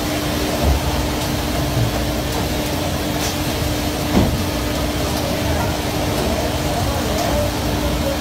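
A boat's engine running with a steady hum over the rush of churning sea water alongside the hull, with a single knock about four seconds in.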